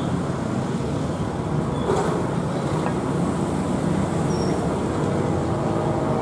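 Gulfstream G550's twin rear-mounted Rolls-Royce BR710 turbofans at climb power during a go-around, a steady jet rumble from the ground, with a brief click about two seconds in.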